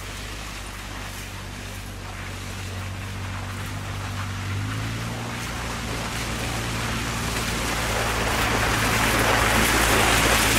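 Kawasaki Mule Pro-FXT side-by-side's three-cylinder petrol engine running as it drives toward the listener, growing steadily louder, its engine note rising a step about halfway through.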